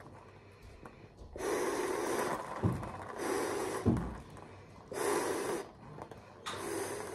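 Latex balloon being blown up by mouth: four strong breaths pushed into it, about one every second and a half, with quieter gasps for air between. Two short, low sputters with a falling pitch sound between the breaths, the second the loudest sound.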